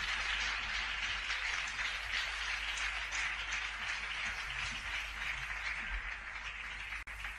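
Audience applause on an old live concert recording, a steady crackle of many hands clapping that slowly dies down.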